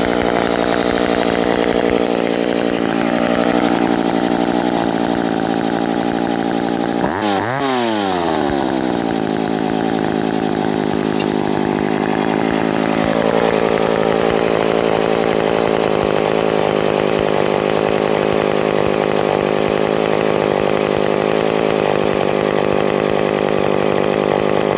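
McCulloch two-stroke chainsaw engine idling steadily while its idle speed, which was running a little high, is turned down with a screwdriver. About seven seconds in the engine speed drops sharply, then it runs on at a steady lower idle.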